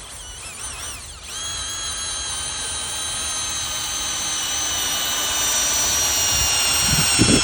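Power drill boring a hole for a lag bolt. The motor whine wavers in speed for about the first second, then holds steady at full speed and grows slightly louder as the bit cuts in.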